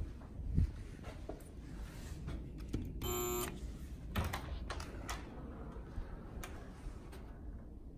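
Hotel room's electronic key-card door lock: a short beep about three seconds in, then a few clicks as the latch releases and the door is pushed open. A low thump comes near the start.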